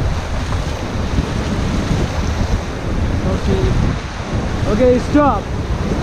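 Rushing whitewater of the Indus River rapids around an inflatable raft, with wind buffeting the microphone in a low rumble. A brief voice call rises and falls about five seconds in.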